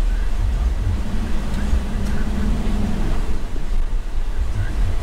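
Cabin noise of a Toyota HiAce Commuter van on the move: a steady low engine and road rumble, with the engine note coming up for a couple of seconds in the middle.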